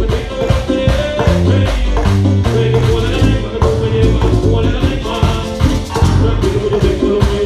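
Live band playing music with a steady beat, bass line and percussion.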